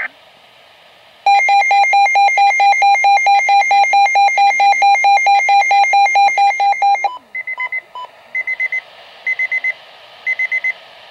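Weather radio alert alarm: a loud, rapidly pulsing electronic beep, about six pulses a second, starting about a second in and stopping about seven seconds in. It is followed by short groups of quick, fainter high beeps about once a second. The alarm signals an incoming severe weather warning broadcast.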